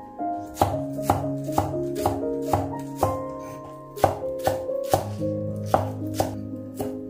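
Chef's knife chopping green onions on a wooden cutting board: steady strokes about two a second, with a brief pause a little past halfway. Soft piano music plays underneath.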